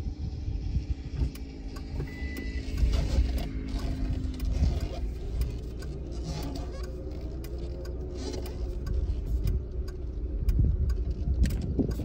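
Car driving slowly on a rough road: a steady low rumble from the tyres and engine, with frequent small knocks and rattles.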